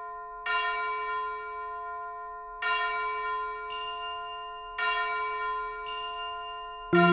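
Background music: a bell-like chime chord struck about every two seconds, each note ringing out and slowly fading, with a brighter high note in between. A fuller, busier melody comes in near the end.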